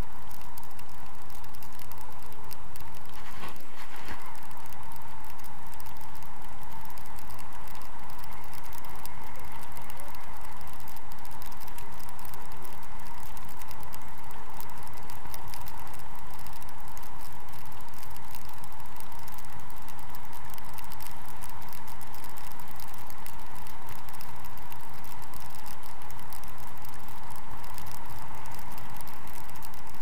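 Airflow of paraglider flight rushing over the harness-mounted camera's microphone: a steady, loud wind rush with a constant mid-pitched hum running through it, and a brief knock about three and a half seconds in.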